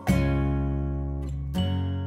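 Background music ending on strummed guitar chords: one just after the start, then a last chord about a second and a half in, left to ring and fade.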